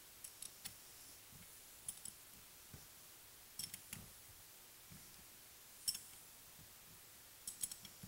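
A ratchet wrench clicking faintly in short, irregular runs of a few clicks as bolts are run down.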